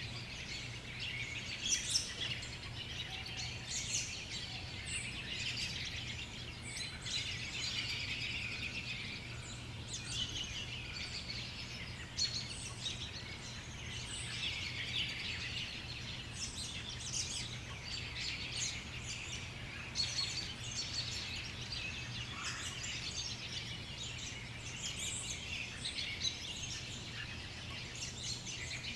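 Several birds chirping and calling in many short, overlapping chirps, over a faint steady low hum.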